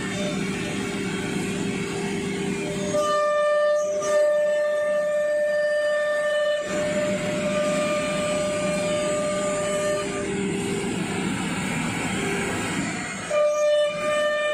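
CNC router spindle running at high speed and cutting a wood panel: a steady high-pitched whine over a rough cutting noise. The whine comes in about three seconds in, drops out about two-thirds of the way through, and returns briefly near the end.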